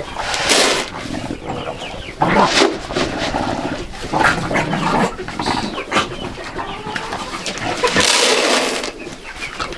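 Chickens clucking among barn handling noises, with two loud bursts of rustling noise, one about half a second in and one near the end.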